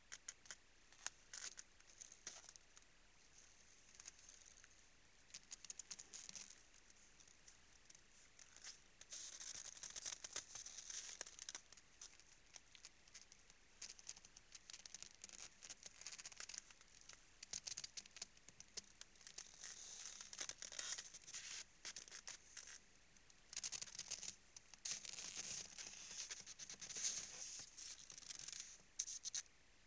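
Faint, intermittent crackling and crunching from moose at a salt lick in snow. It comes in clusters of quick clicks, which grow more frequent in the second half.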